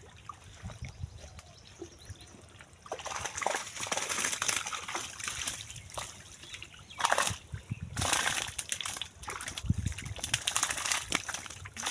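Water sloshing and splashing in irregular bursts, getting louder about three seconds in, with the strongest splashes past the middle.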